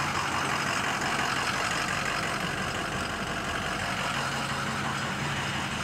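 2005 Ford F-250 pickup's engine idling steadily, with a constant low hum under an even running noise.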